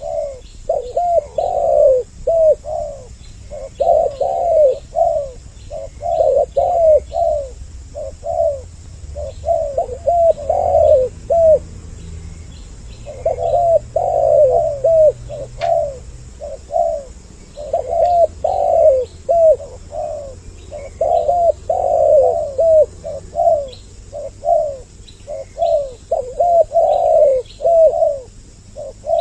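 Spotted doves (tekukur) cooing: two birds calling together in repeated, overlapping coo phrases, a bird-catcher's lure call. The calls pause briefly about twelve seconds in.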